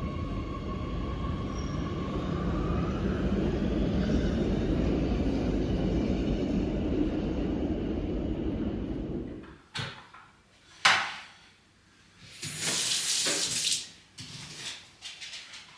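A steady low rumble with a faint high whine, like a train running, cuts off abruptly about nine seconds in. It is followed by a few clicks and knocks and a short burst of running tap water.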